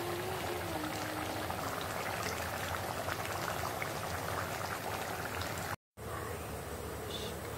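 Thick fish curry bubbling in a wok on the stove, a steady sputter of small pops. It breaks off suddenly near the end, leaving a plain steady hiss.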